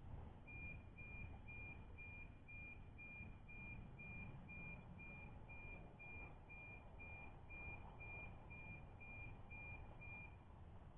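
Faint, high-pitched beep repeating evenly about twice a second, stopping just before the end, over a low background rumble.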